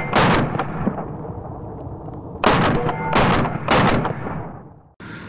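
AR-15-style rifle firing: a shot just after the start, then a string of three shots about half a second apart from about two and a half seconds in, each echoing away before the sound cuts off abruptly near the end.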